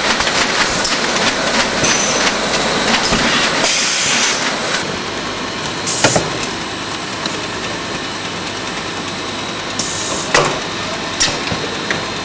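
Automatic cartoning and case-packing machinery running: a steady mechanical clatter, with several short hisses of compressed air from the pneumatic grippers and cylinders and a few sharp clacks as the parts move.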